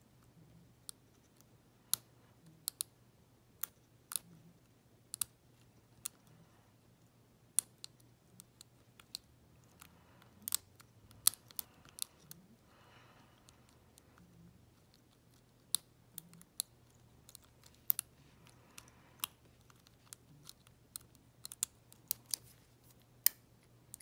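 Steel lock pick working the pin tumblers of an EVVA euro cylinder under light tension: irregular sharp metallic clicks as pins are lifted and drop back, with two short stretches of faint scraping about ten and eighteen seconds in.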